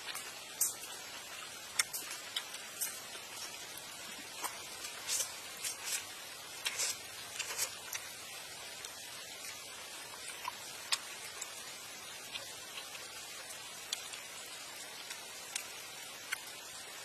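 A person eating with chopsticks: irregular wet chewing and smacking clicks, denser in the first half, over a steady background hiss.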